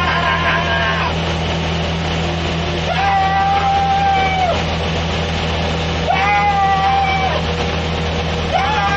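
1936 Dennis 4-ton petrol lorry's engine running flat out, a steady low drone heard from inside its cab. Over it, a held pitched note sounds three times, each lasting a second or so.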